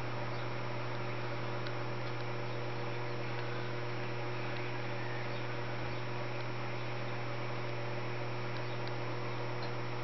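Steady low electrical hum with a constant hiss behind it, and a few faint, short high ticks.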